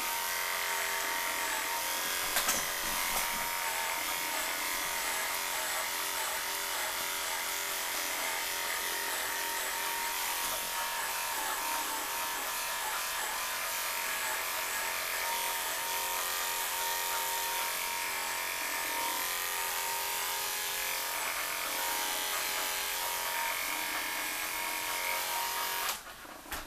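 Electric dog grooming clippers buzzing steadily as they trim a cocker spaniel's coat. They switch on at the start and cut off about 26 seconds in.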